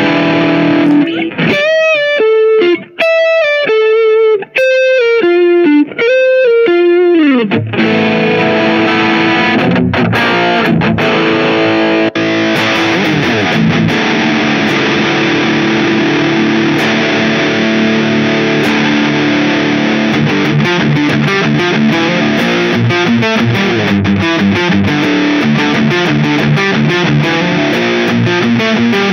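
Aiersi TL-12 Strat-style electric guitar played with distortion. For the first several seconds it plays a single-note lead line with pitch bends and vibrato. About eight seconds in it changes to dense, sustained riffing and fast picking.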